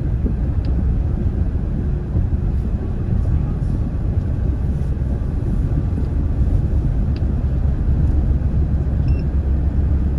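Steady low rumble of a car driving at road speed, heard from inside the cabin: road and engine noise.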